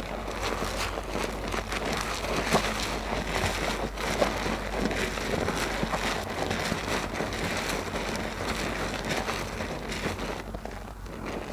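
Hands squeezing a big soap-soaked loofah in thick lather: continuous wet squelching and fine crackling of the foam, easing slightly near the end.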